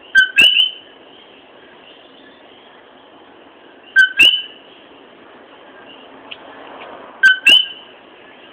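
Common coquí frog calling its two-note "co-quí": a short lower note followed by a higher rising one, three times about three and a half seconds apart, over a steady background chorus of calling frogs and insects.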